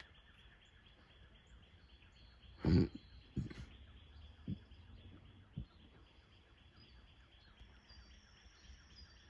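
A steady background chorus of rapid, evenly pulsed chirping. A loud thump comes near three seconds in, followed by a few fainter knocks.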